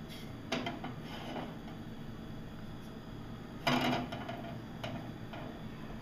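Aluminium saucepan knocking and clinking against a gas stove's metal grate: a small clatter about half a second in, then a louder knock with a short ring a little before four seconds, and a couple of faint knocks after.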